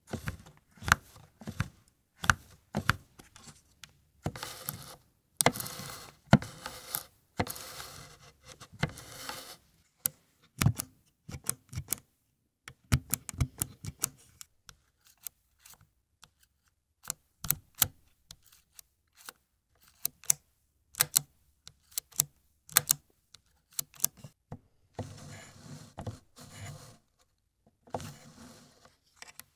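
Close-miked handling of an Agfa Billy Compur folding camera: a string of sharp clicks and ticks from its mechanism, broken by stretches of scraping and rubbing, with a short quiet gap midway.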